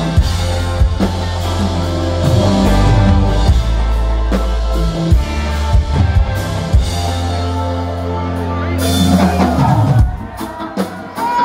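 Live band heard from the crowd: drum kit, heavy bass line, keyboards and electric guitar playing loud. About nine seconds in a hissing wash swells up, and a second later the bass drops out, leaving the drums and higher notes.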